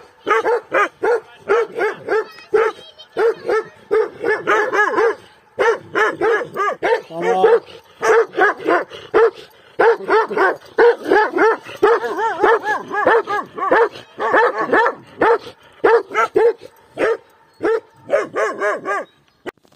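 Dog barking rapidly and loudly over and over, several barks a second, with a couple of short breaks.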